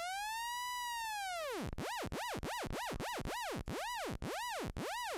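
Wasp XT software synth holding one bright note with extreme LFO pitch vibrato. The pitch swoops up and back down in one slow arch. Then, with the LFO sped up, it dives deep and rises again nearly three times a second.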